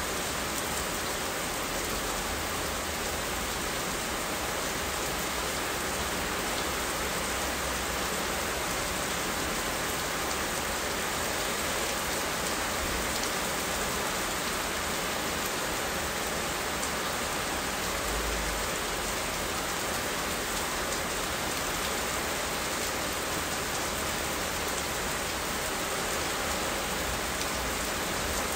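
Steady rain falling, an even, unbroken hiss with no thunder.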